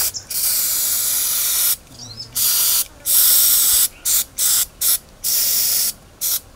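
Aerosol can of blue marking spray hissing onto an elephant's hide in repeated bursts: a long spray of about a second and a half, then about eight shorter squirts that stop and start.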